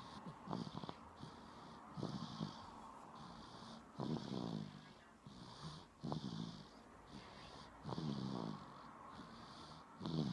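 Snoring in a steady rhythm, one snore about every two seconds.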